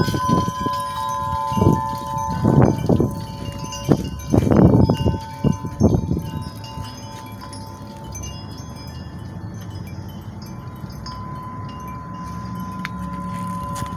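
Wind chimes ringing, several sustained metallic tones overlapping and slowly fading, with a few low, muffled bumps in the first half.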